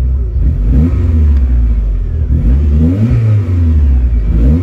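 Car engine free-revving from idle in about three short throttle blips, each rising and falling in pitch, heard from inside the cabin.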